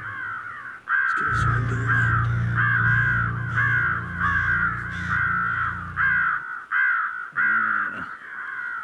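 Crows cawing over and over, a harsh call about every half second. A low steady drone runs underneath for the first several seconds.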